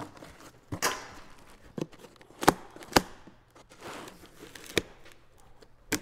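A package being opened by hand: wrapping tearing and crinkling, with several sharp knocks and taps, the two loudest about half a second apart near the middle.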